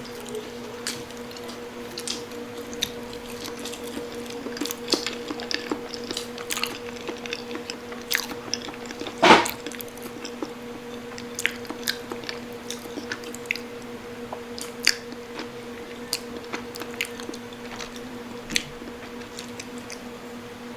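Close-up chewing and biting of crispy pork knuckle, with many small wet clicks and crunches and one louder sound about nine seconds in, over a steady low hum.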